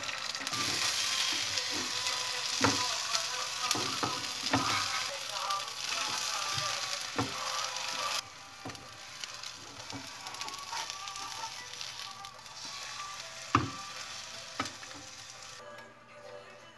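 Egg sizzling as it fries in a non-stick pan, with a wooden spatula scraping and knocking against the pan now and then. The sizzle is strong for the first half and drops to a quieter hiss about eight seconds in, then fades near the end.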